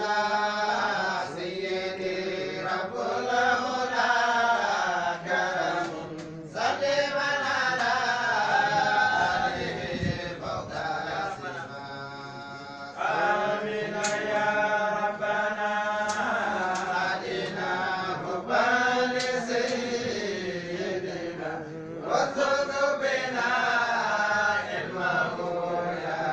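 A voice chanting a devotional recitation in long melodic phrases, with a few short breaks between them.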